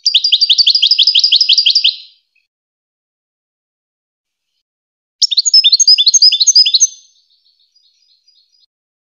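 European goldfinch singing: two fast trilled phrases of rapidly repeated high notes, the second starting about five seconds in and trailing off into a few faint notes.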